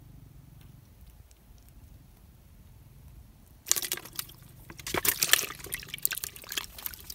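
A freshly caught fish splashing in a plastic bucket of water as it is put in: a sudden burst of irregular splashes about three and a half seconds in that goes on for about three seconds.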